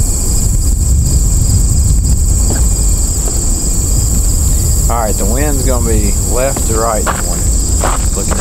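Steady high chirring of crickets in grassland, over a low wind rumble on the microphone. From about five seconds in, a run of short pitched sounds rises and falls above it.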